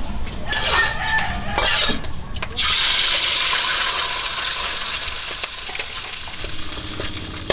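An egg frying in hot oil in a steel wok, sizzling with a steady hiss that starts suddenly about two and a half seconds in.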